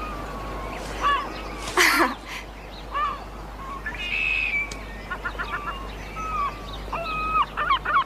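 Gulls calling: quick series of short yelping calls mixed with longer drawn-out gliding cries, with one louder noisy burst about two seconds in.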